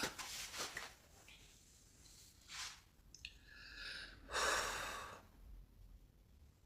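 A woman breathing hard between exercise repetitions: a few separate audible breaths, the loudest about four and a half seconds in.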